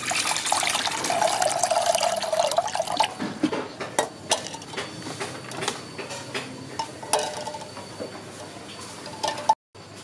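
Water poured from a stream into a stainless steel pot, splashing and filling for about three seconds. After that it is quieter, with a few sharp clinks against the pot.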